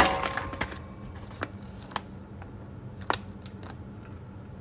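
A few scattered sharp clicks and taps from product packaging being handled, the loudest about three seconds in, over a steady low hum.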